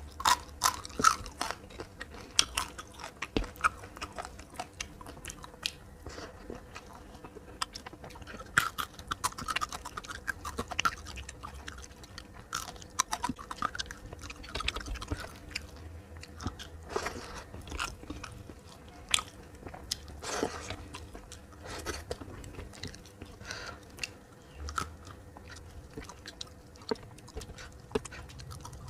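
A person chewing and biting into a meal of fried fish, green beans and rice, with irregular crunches and clicks of the mouth.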